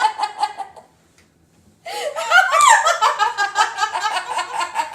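Hearty laughter in rapid bursts that dies away about a second in, then breaks out again after a short pause and keeps going.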